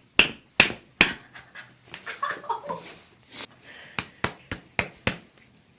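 Sharp strikes on a heel during a chiropractic calcaneus adjustment: four quick hits in the first second, then a second run of five about four seconds in, roughly four a second.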